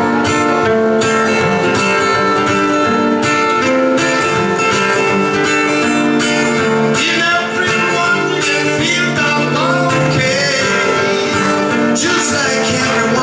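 Acoustic guitar fingerpicked live, ringing chords and single notes in a steady flow.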